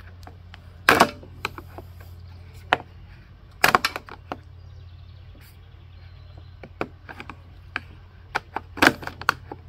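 Screwdriver prying at the plastic recoil cover of a Briggs and Stratton 550EX mower engine: sharp plastic clicks and snaps as the cover's locking tabs are worked loose. The loudest snaps come about a second in, near four seconds and near nine seconds.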